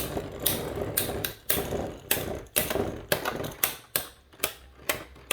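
Plastic Beyblade spinning tops clacking against each other and the stadium, a sharp clack roughly every half second, while the hiss of spinning dies away after about a second and a half.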